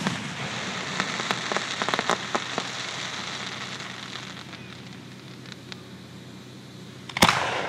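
Aerial fireworks: crackling and a scatter of sharp pops as a shell's burst dies away over a few seconds, then another shell bursts with a loud bang near the end.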